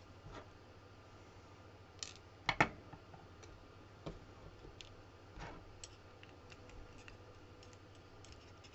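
Small metal clicks and taps of tweezers handling the pins and springs of a CX5 lock core as they are picked out and set down. The loudest is a sharp double click about two and a half seconds in, followed by scattered single clicks and a run of faint quick ticks near the end.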